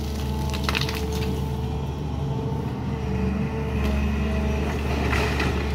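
SANY crawler excavator's diesel engine running steadily under load, with a steady whine from its hydraulics as the boom lifts a loaded bucket. A few short knocks about a second in and again near the end.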